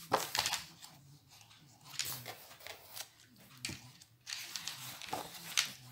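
Hands handling a paper colouring book, with a few brief paper rustles and brushing noises as its cover and pages are moved.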